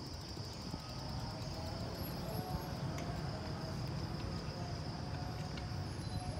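Steady high-pitched insect drone over a low rumble, with no distinct mechanical clicks.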